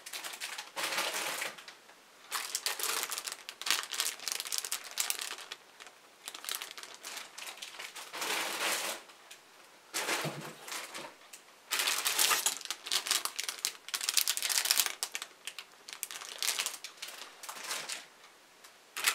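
Clear plastic bags holding plastic model-kit runners crinkling as they are handled, in bursts with short pauses between.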